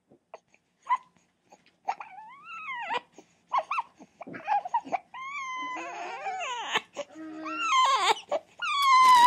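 A young child whining and fussing: a string of high, rising-and-falling squeals and whimpers that get louder and more insistent toward the end.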